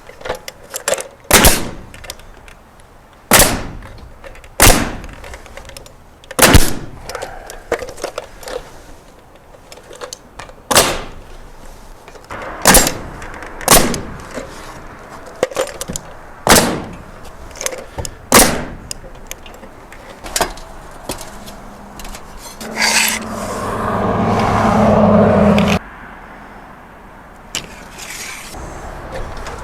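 Boards being nailed into barn framing: a dozen or so single sharp bangs, one every second or two. Near the end, a power tool's motor runs for about three seconds and then cuts off.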